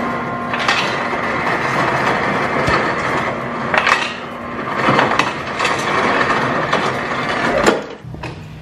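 Refrigerator door dispenser running into a water bottle: a steady mechanical rush and hum with a few knocks, cutting off about eight seconds in.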